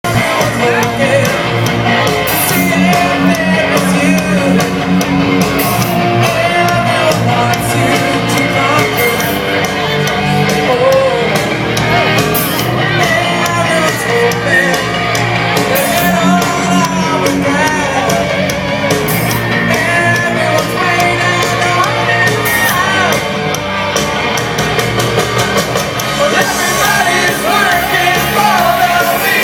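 Live rock band playing through a PA system, with a singer's voice over the band.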